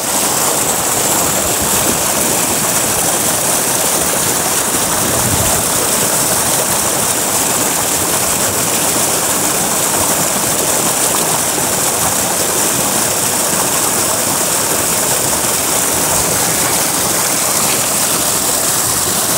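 Heavy jet of water pouring from an irrigation pipe outlet into a concrete tank, a loud steady gushing and splashing.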